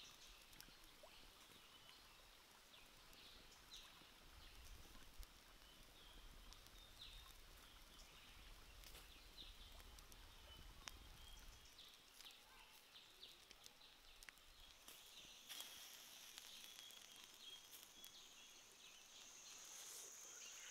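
Near-silent outdoor ambience with faint scattered clicks and crackles, and a high steady insect buzz that comes in about three-quarters of the way through.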